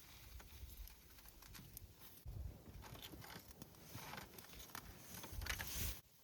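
Faint crackling and snapping from a small wood campfire, with low rumbles of wind on the microphone; the sound cuts off abruptly near the end.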